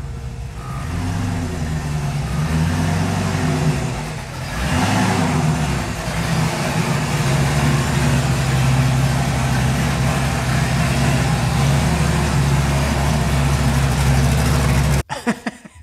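Ultra4 rock-racing car's engine running as it is driven in, revving up and down a few times over the first few seconds, then holding a steady faster speed until it stops abruptly near the end.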